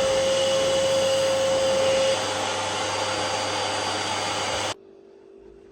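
A small electric appliance motor running with a steady, loud whining hum; it drops a little in level about two seconds in and cuts off suddenly near the end.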